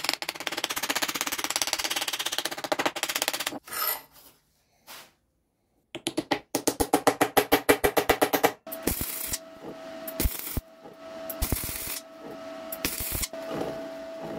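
Two runs of rapid metallic tapping on a steel canister packed with ball bearings, then a MIG welder sputtering and crackling in several short bursts as it tack-welds the canister's end, with a steady hum underneath.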